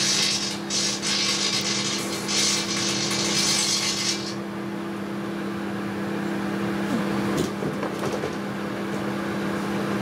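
Panasonic microwave oven running with a steady electrical hum, while plasma arcing from the halogen downlight inside gives a loud, flickering crackling hiss. The arcing cuts off about four seconds in, leaving the oven's hum going on alone.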